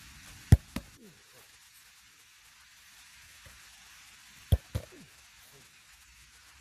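Two pairs of sharp thumps about four seconds apart, each pair a quarter-second apart, from a football being struck and caught during goalkeeper drills.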